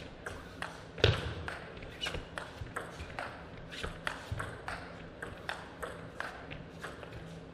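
Table tennis rally: the plastic ball clicks off the paddles and bounces on the table about two to three times a second. One louder knock comes about a second in.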